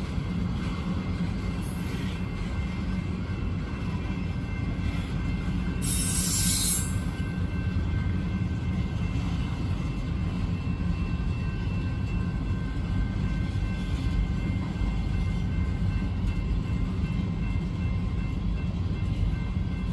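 Freight cars of a BNSF manifest train, tank cars and covered hoppers, rolling past: a steady, dense low rumble of steel wheels on rail, with faint steady high tones above it. A brief high hiss comes about six seconds in.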